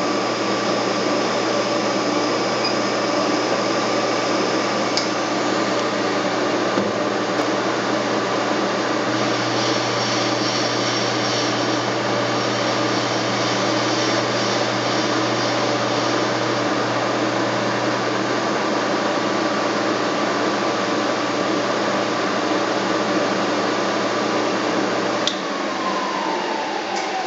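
Milling machine motor running steadily with a constant hum and whine, switched off about 25 seconds in and winding down with a falling whine.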